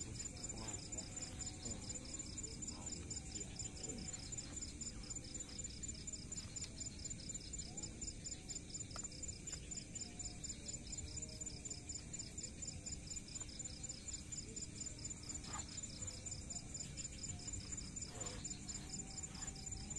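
Night insects, crickets, chirping in a steady chorus: a fast, even pulsing at two high pitches. A few faint knocks from gear being handled.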